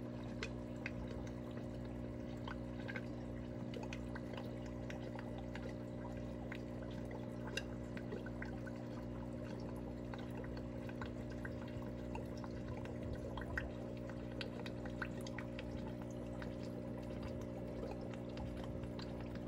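Aquarium filter water trickling and bubbling, with many small drip-like pops over a steady low hum.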